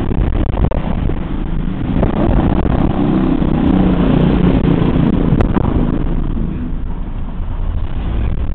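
Wind buffeting the microphone through an open car window while driving, mixed with the car's road and engine noise; a steady, loud rumble that swells for a few seconds in the middle.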